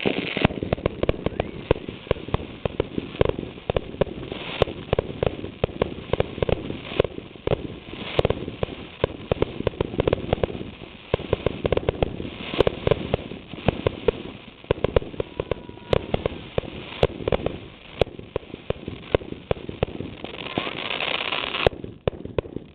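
Fireworks display: shells launched and bursting in rapid succession, a dense, irregular run of bangs and crackles, with louder bangs standing out every second or few.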